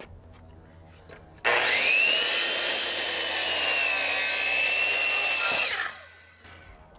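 Corded circular saw cutting through a 2x8 board. The motor whines up about a second and a half in, runs through the cut for about four seconds with its pitch sagging slightly under load, then is switched off and winds down.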